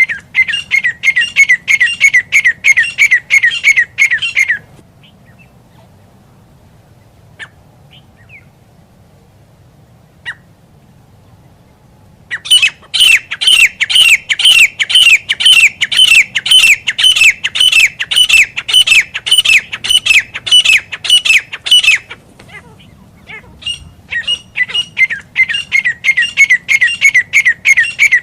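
Grey francolin calling: bouts of rapid, shrill repeated notes, about four a second, starting and stopping in long runs with quiet gaps between them.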